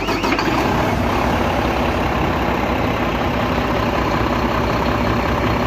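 Mack MP7 inline-six diesel engine idling steadily in a semi truck, running with its newly replaced turbocharger.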